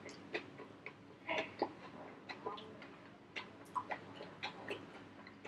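Close-up mouth sounds of a man chewing a mouthful of black rice and coconut curry with his mouth closed: irregular soft wet clicks and smacks, a few a second.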